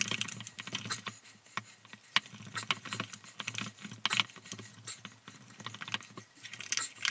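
A spatula scraping and clacking against a stainless steel mixing bowl as a thick, stiff peanut butter filling is beaten by hand. The clicks and knocks come unevenly, several a second.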